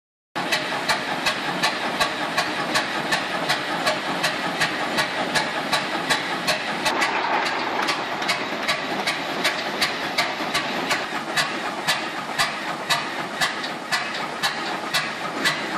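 1918 Case 20-40 tractor's two-cylinder opposed engine running slowly, its exhaust firing in sharp, even beats about three a second over a steady hissing clatter.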